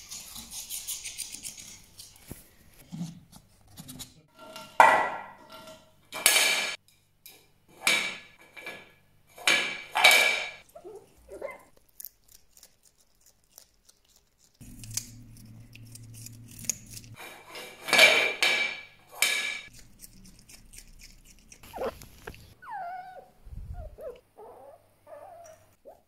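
Fennec fox giving a string of short, loud calls about a second apart, then after a pause two more, followed by softer wavering squeaks near the end.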